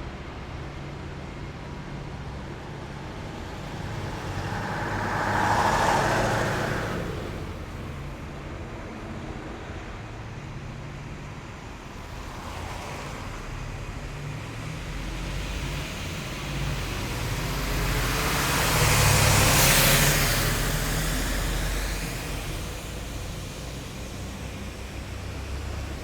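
Heavy military vehicles of a column drive past one after another over a steady low engine rumble. Two louder pass-bys swell and fade, about six seconds in and near twenty seconds, with a fainter one in between.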